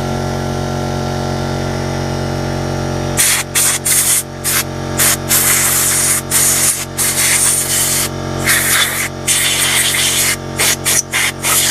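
A steady hum, then about three seconds in, repeated short, loud hissing bursts of compressed air from an airline and carb-cleaner spray being blown through a lawn mower carburettor to clean it.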